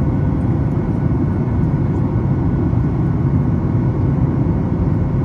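Steady cabin noise inside a Boeing 737 MAX 8 climbing after takeoff, heard from a window seat over the wing: a deep, even rumble of the CFM LEAP-1B engines and rushing air, with faint steady tones above it.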